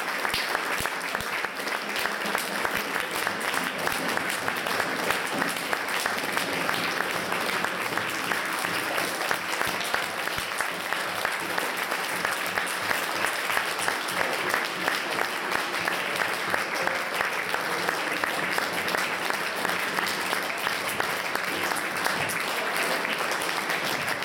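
Concert hall audience applauding steadily, a dense patter of many hands clapping.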